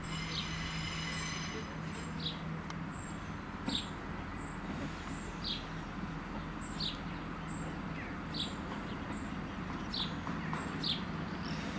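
A diesel multiple unit's engines running with a steady low drone as the train rolls slowly in, while a bird repeats a short, falling chirp about every one and a half seconds.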